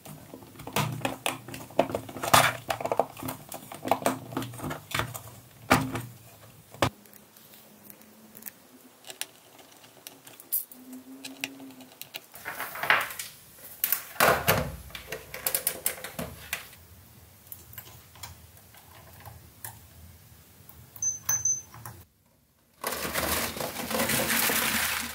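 Hard plastic clicking and knocking as 3D-printed dome segments are handled and pressed together, busiest in the first few seconds and sparser later. Near the end, a loud rush of rattling as a boxful of plastic blister packs is tipped out onto a mat.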